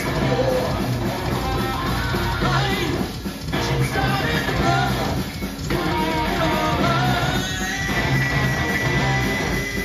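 Live hard rock band playing loud, with distorted electric guitar, bass guitar, drums and a singer; a high note is held through the last two seconds.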